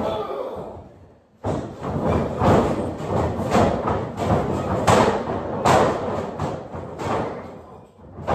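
Many heavy thuds and slams of wrestlers landing on a wrestling ring: one hit at the start, then a dense run of impacts from about a second and a half in.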